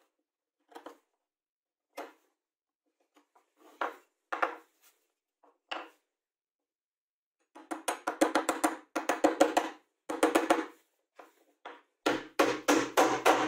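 Sharp wooden taps and knocks from hand tools on a plywood workpiece on a wooden workbench. A few single taps come first, then quick runs of knocks from about halfway, and the last run has a deeper thud in it.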